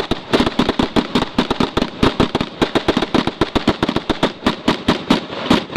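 Rapid gunfire from M4/AR-15-type rifles, about eight to ten sharp shots a second, unevenly spaced and overlapping, as from several rifles firing at once.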